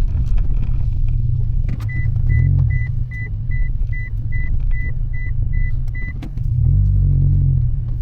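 Road and engine rumble inside a moving Mitsubishi Delica, swelling twice. About two seconds in, an electronic warning beep starts repeating two or three times a second and stops after about four seconds.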